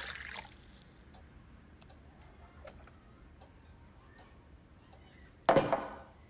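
Orange juice poured into a glass, ending about half a second in, then a clock ticking faintly. A short, sudden, loud sound comes near the end.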